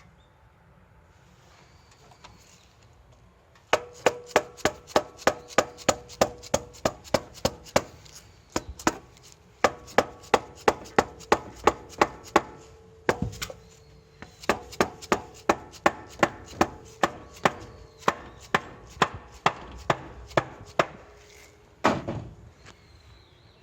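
Repeated sharp knocks, evenly spaced at about two to three a second, each with a brief ringing. They come in runs with short breaks and end in a heavier blow near the end.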